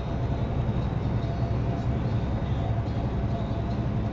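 Steady drone of a semi truck's engine and tyre noise on the highway, heard from inside the cab.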